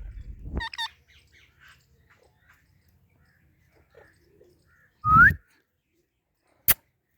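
Baby parrot giving a few short chirps, then one loud rising whistled call about five seconds in, with a low thump under it. A sharp click comes near the end, and a low rumble fills the first half second.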